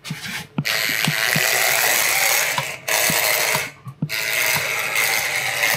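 Tiny 1:64-scale Hot Wheels RC Porsche 911 GT3's electric motor and gears whirring as it is driven back and forth. The whir cuts out briefly a few times.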